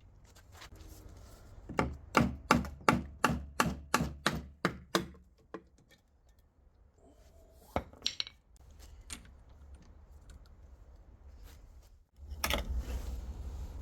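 A quick series of about ten sharp knocks of tools and parts on metal during gearbox work, about three a second, then a single clack; a steady hiss with a low hum starts near the end.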